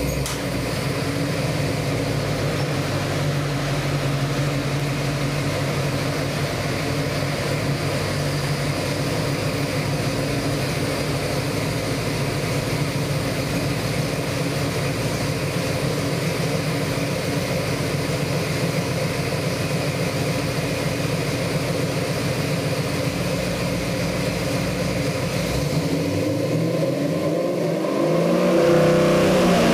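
Ford 302 small-block V8 crate engine with MSD Atomic EFI, idling steadily at about 800 rpm on an engine dyno. Near the end it revs up to about 3000 rpm, rising in pitch and getting louder as the dyno pull begins.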